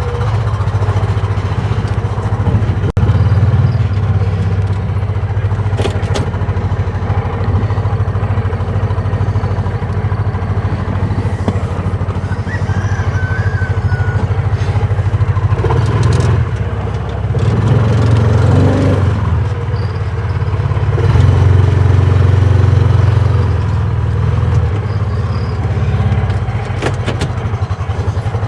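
A vehicle's engine running steadily under way, with a low drone that swells louder a couple of times, and a few sharp clicks or knocks.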